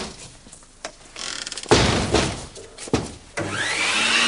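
A door slams shut with a heavy thud about halfway through, followed by a second, smaller knock. Near the end a vacuum cleaner switches on, its motor whine rising as it spins up to speed.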